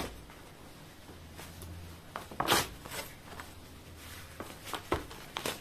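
Paper rustling and light knocks as workbook pages are flipped and paperback books are picked up and moved, with a louder swish about two and a half seconds in and a few sharper rustles near the end.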